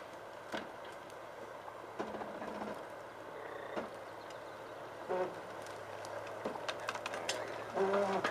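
Jeep Wrangler crawling slowly over a forest trail at low engine speed: a steady low engine hum, with scattered snaps and cracks of twigs and brush under the tyres. A voice calls out briefly twice in the second half.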